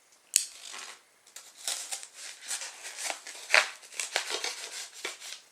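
A knife cutting through packing tape, heard as a run of short, irregular scratchy strokes and tears, after one sharp click just before.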